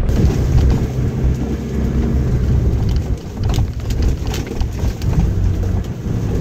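Car driving along a bumpy unpaved track, heard from inside the cabin: a loud, heavy low rumble with scattered knocks and rattles as it jolts.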